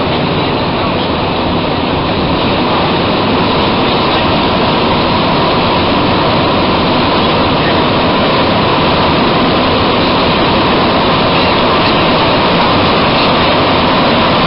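Cabin noise of a rubber-tyred Bombardier MR-73 metro car running through a tunnel: a loud, steady rush of tyres, motors and tunnel air that builds slightly in loudness.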